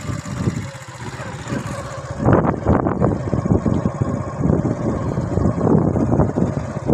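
Small motorcycle running along a rough dirt track, with wind buffeting the microphone. It gets louder about two seconds in.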